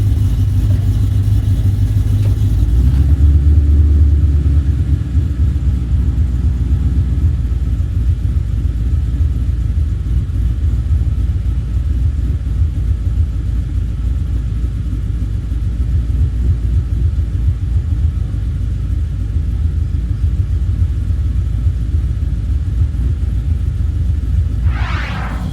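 Car engine running with a steady deep rumble, swelling louder for a few seconds about three seconds in. A brief sliding higher tone sounds just before the end.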